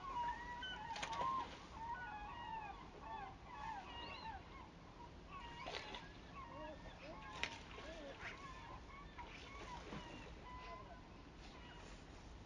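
A flock of birds calling over one another, many short calls that rise and fall in pitch, thinning out toward the end, with a few sharp clicks or knocks among them.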